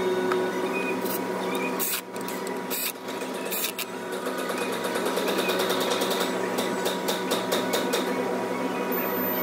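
Hand ratchet clicking on bolts at the front of a Ford 5.0 Coyote V8, near the water pump: a few single clicks, then fast, even ratcheting strokes through the second half, with a steady hum behind.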